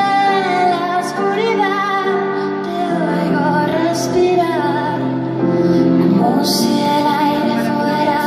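A woman singing live, her melody bending over held keyboard chords played on a Nord Electro 5 stage keyboard.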